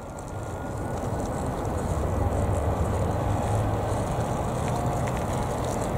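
Jet airliner engines: a steady low rumble that grows louder over the first two seconds, then holds.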